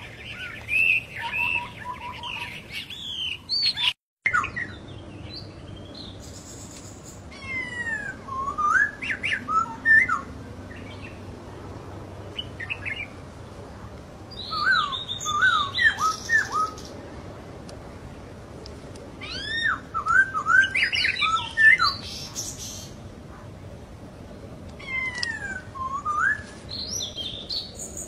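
Black-throated laughingthrushes singing: bouts of loud whistled notes that slide up and down, several phrases a few seconds apart. The sound drops out briefly about four seconds in.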